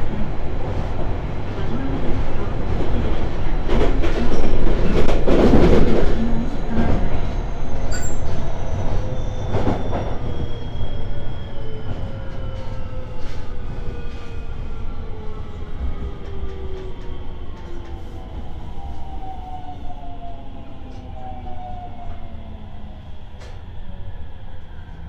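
JR Shikoku 5000 series electric train's Toshiba IGBT VVVF inverter and traction motors whining as the train slows, several tones falling steadily in pitch over rumbling wheel and rail noise, heard from inside the car. The rail noise swells about four to six seconds in and then slowly dies away.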